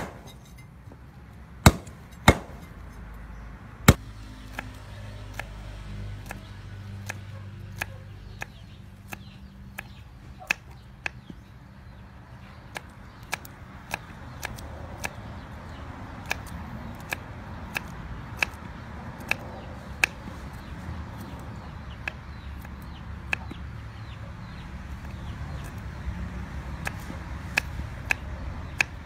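A cleaver chopping through skinned snake pieces on a round wooden chopping block, four heavy chops at first, followed by a small knife slicing garlic cloves on the block with light taps about once a second.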